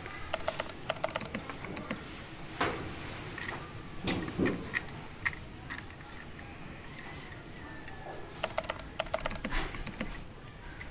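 Quick runs of small plastic clicks and rattles from a neck-mount frame's camera clamp and joint being handled and tightened. There are two bursts, one at the start and one near the end, with a few single knocks between.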